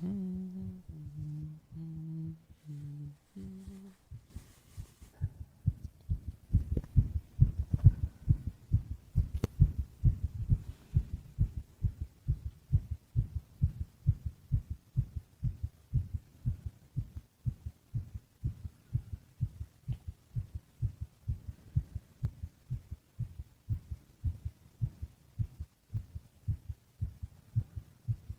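A person hums a few held notes of a tune. About four seconds in the humming stops and a human heartbeat, heard close up, takes over: steady, low, muffled thumps in an even rhythm.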